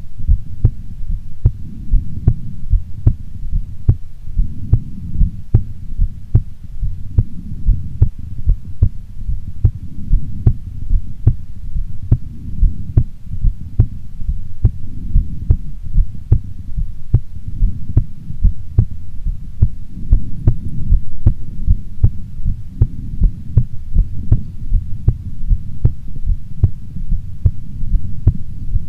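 A woman's heartbeat beating steadily and regularly, each beat a short soft thump, over a continuous low rumble.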